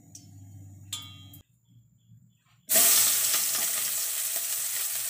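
Sliced onions hitting hot oil in a wok: a sudden loud sizzle starts about halfway through and slowly eases as they begin to sauté. Before it, a couple of light metal clinks.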